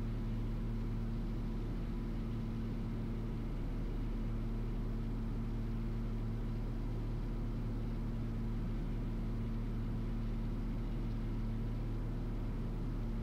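Steady drone of the Cessna 340A's twin piston engines and propellers in flight, heard inside the cockpit, with an even low hum and no change in pitch.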